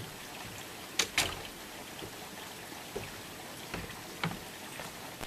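A glass-paned wooden door pulled shut, with two sharp knocks close together about a second in, followed by a few light footsteps on wooden porch boards.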